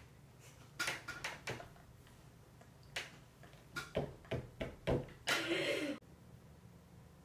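Handling noise: a scattered run of light knocks and clicks, a cluster of them around the middle, then a short noisy rush lasting under a second about five seconds in.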